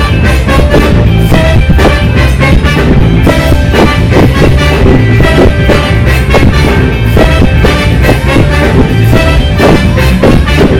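Live funk band playing loudly, without vocals: a steady drum-kit beat over a heavy bass line with other instruments on top.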